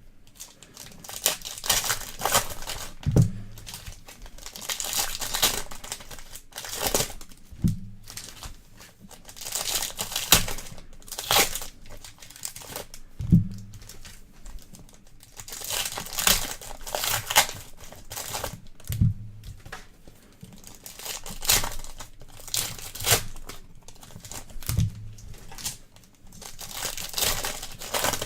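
Trading card pack wrappers being torn open and crinkled by hand, in repeated spells of crackling. A short soft thud comes about every five seconds.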